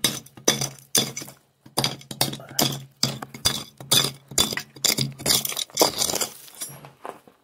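Rocks and gravel clattering and clinking against each other and against the steel rails of a grizzly, as packed material is broken up from underneath and knocked through the bars. It is an irregular run of sharp knocks, several a second.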